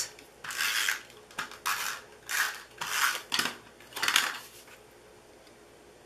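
Snail tape runner drawn across the back of a paper panel in about six quick strokes over some four seconds, laying down adhesive, then stopping.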